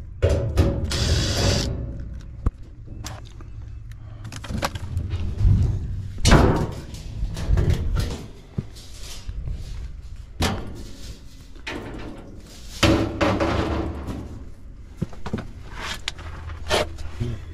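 Sheet-metal service panel of an outdoor AC condensing unit being handled and pulled off, with irregular scraping, knocks and rattles of thin metal.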